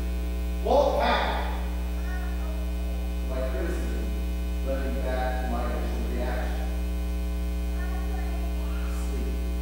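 Steady low electrical mains hum, with a man's voice heard faintly in a few short snatches.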